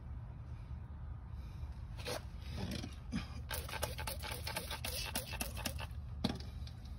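Scraping and rustling handling noise over a steady low rumble: quick clicks and scrapes start about two seconds in, come thickest in the middle and end with one sharper click near the end.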